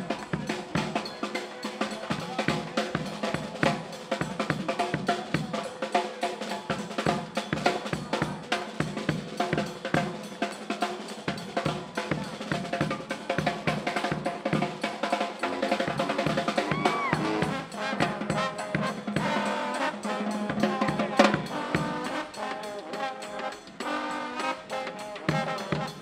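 Marching street brass band playing: sousaphone, trombones and other horns over a driving bass drum and snare beat, the horns coming to the fore in the last few seconds.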